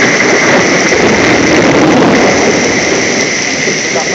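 Torrential rain pouring down: a loud, steady rushing downpour.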